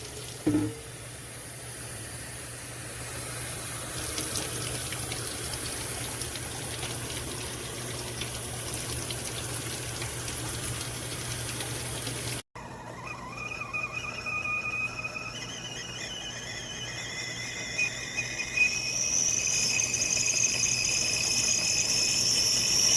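A stainless steel whistling stovetop kettle: first a steady rushing hiss as it heats, then, after a break, its whistle starts up as several wavering high tones and rises to a loud, shrill whistle near the end.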